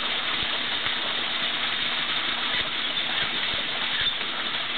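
Pond fountain splashing: a steady rush of water from a jet falling back onto the pond surface.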